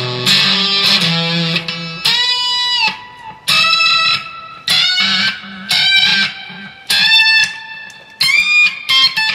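1972 Gibson Les Paul Deluxe electric guitar played loud through an amplifier: a fast, dense run for about two seconds, then single sustained lead notes with string bends, each struck hard and fading.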